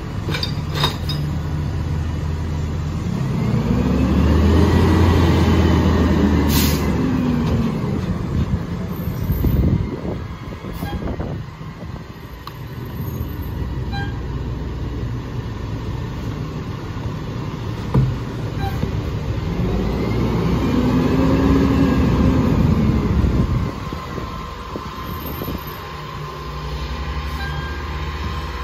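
Mack MRU garbage truck's engine idling, then revving up twice for several seconds, pitch rising and falling each time, as the McNeilus rear loader's hydraulic packer cycles. A single sharp knock falls between the two revs.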